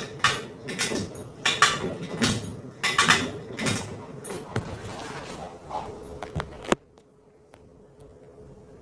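Irregular clattering and knocking of hard objects being handled, which cuts off suddenly about seven seconds in, leaving a faint steady hum.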